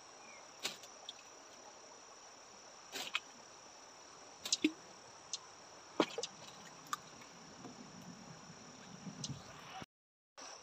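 Steady high-pitched insect drone, with scattered sharp clicks and taps over it. The sound cuts out briefly near the end.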